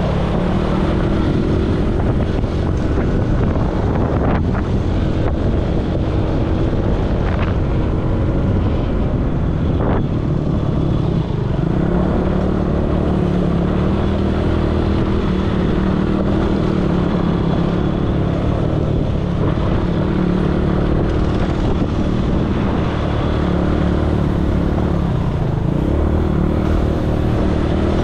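ATV engine running steadily under way, its pitch holding nearly constant with small rises and dips.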